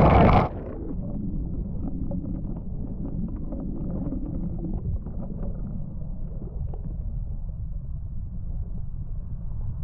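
Waterfall water pounding down: a loud, full rush that turns suddenly, about half a second in, into a steady muffled low rumble.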